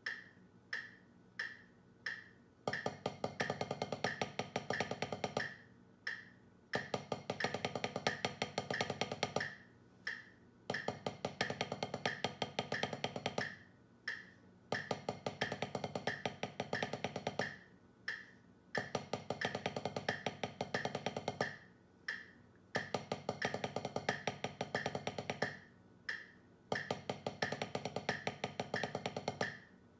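Wooden drumsticks playing fast sticking patterns on a drum practice pad, in phrases of about three seconds with a short break between each, over a metronome clicking steadily at 90 BPM. Four metronome clicks alone open it as a count-in.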